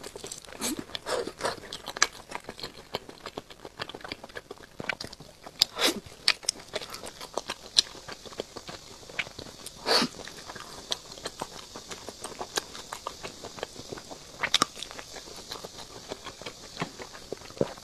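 Close-miked biting and chewing of a roasted chicken drumstick, its crisp skin crunching in a quick, irregular run of clicks and crackles, with a few louder snaps.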